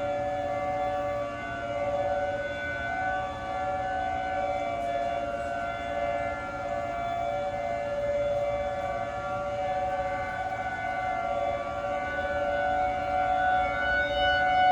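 Outdoor civil defense warning siren sounding during a siren test: a steady two-tone chord that swells and fades gently in loudness and is loudest near the end.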